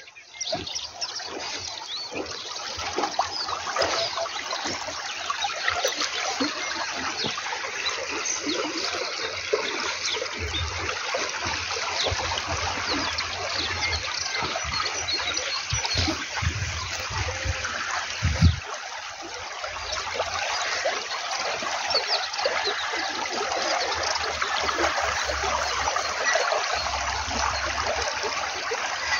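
Water flowing along a narrow earth-banked ditch, a steady trickling and splashing. A short knock comes about two-thirds of the way through, and a low rumble on the microphone comes and goes.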